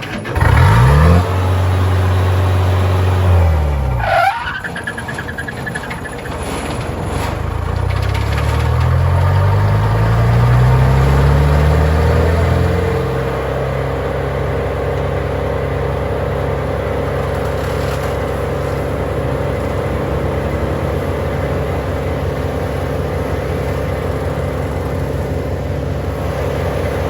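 Wood chipper's engine running up to speed. Its pitch climbs in the first second, drops sharply about four seconds in, rises steadily again over the next several seconds, then holds a steady run.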